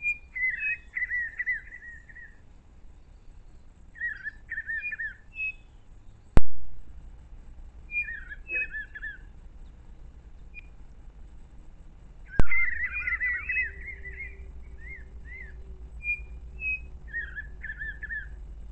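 Small forest birds singing short chirping phrases of whistled notes, repeated every few seconds. Two sharp clicks about six seconds apart are the loudest sounds.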